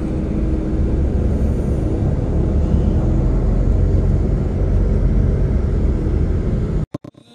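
Steady low engine and road rumble inside a moving tour bus. It cuts off abruptly near the end.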